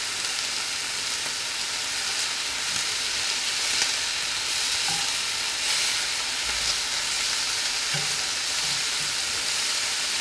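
Thinly sliced chicken breasts frying in olive oil in a cast iron skillet: a steady sizzle, with a few faint knocks from the pan.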